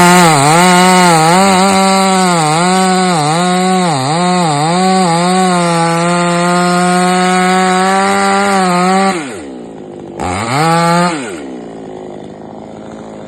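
Chainsaw running at high revs while cutting a coconut palm trunk, its pitch dipping again and again for the first five seconds, then holding steady. About nine seconds in it winds down, revs up once more briefly and drops back to a low idle.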